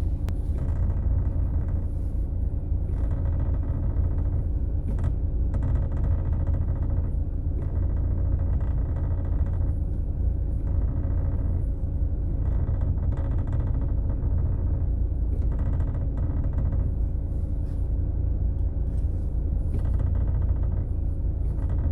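Lada VAZ-2110-family car running with a steady low rumble. A knock from the manual gearbox, which shows up once the car is hot, comes and goes irregularly over it.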